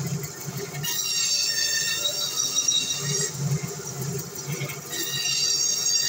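Meat band saw running and cutting through a whole fish crosswise into steaks, a high squealing whine whose pitch pattern shifts as the blade works through the fish, about a second in, around three seconds in and again near five seconds.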